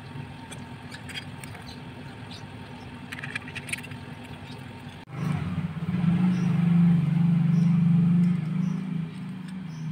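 Electric drill with a hole saw running: a quiet hum with a few light clicks, then about five seconds in a loud steady motor hum starts abruptly and eases off near the end.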